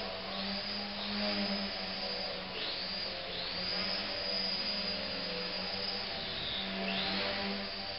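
Whine of a ParkZone Night Vapor's uprated motor and propeller, the motor taken from the ParkZone J3 Cub. The pitch surges up sharply and eases back down several times as the small plane is throttled through loops.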